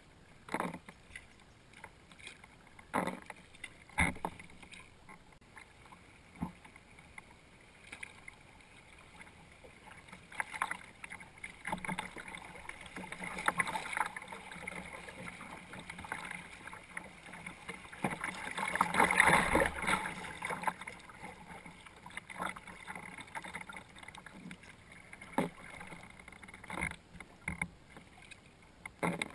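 Kayak paddling: occasional knocks and splashes of the paddle near the hull, with the rush of water over a riffle building up, loudest about two-thirds through, then fading as the boat passes through.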